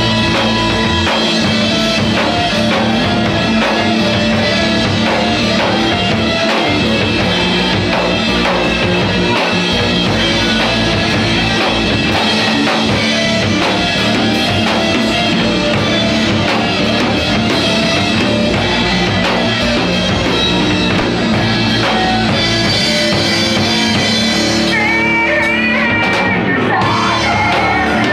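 Rock music played loud and steady: drum kit and guitars, with a voice singing at times.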